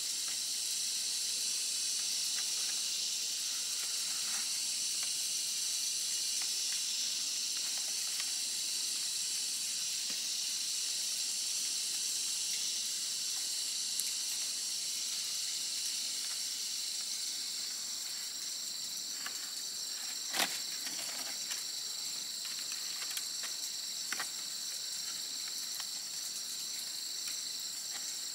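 Steady high-pitched chorus of insects, with a few light clicks and rustles of bamboo strips being woven by hand, the sharpest click about two-thirds of the way through.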